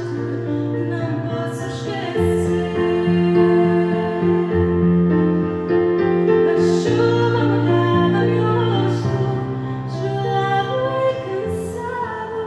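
Slow, gentle music played on a digital piano, with held chords changing every second or two and a woman's voice singing over it.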